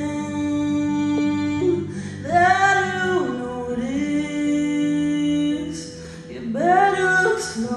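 A woman singing live with an acoustic guitar, in long held notes that slide up at the start of each phrase, over strummed guitar chords.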